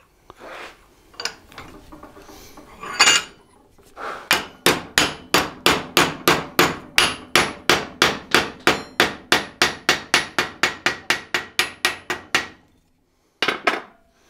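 Hammer striking a steel hinge blank held cold in a radiused holder in a bench vise, bending its tabs over to start rolling the hinge eye. About four even blows a second for some eight seconds, after a few knocks of handling. A short clink comes near the end.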